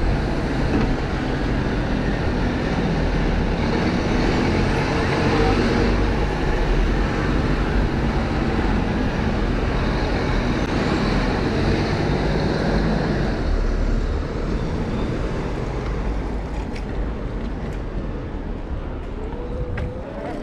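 Road traffic running close by: a dense, steady rumble of motor vehicles that eases off about two-thirds of the way through.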